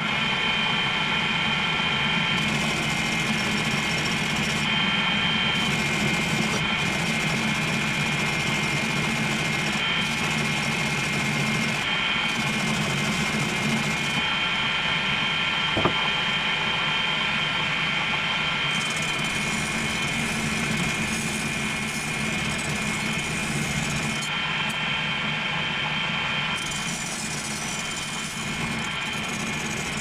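Homemade bench grinder, a washing-machine motor belt-driving a grinding wheel and a buffing wheel, running steadily with nothing against the wheels: a low hum with a steady high whine. A single faint click about halfway through.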